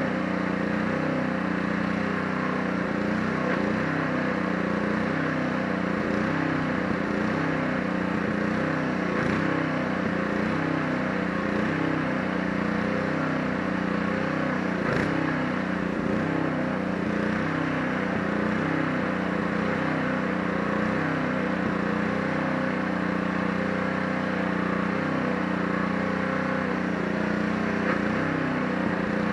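Pressure washer's small engine running steadily at a constant speed.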